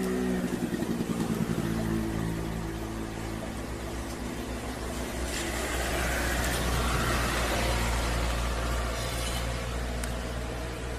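A motor vehicle's engine running nearby: a steady low rumble that grows, with a rushing noise that swells and is loudest a little past the middle, then eases.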